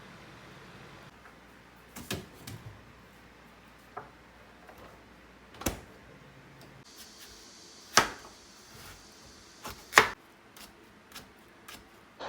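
A few short, sharp knocks and clicks, one every second or two, the two loudest in the second half, over quiet room tone.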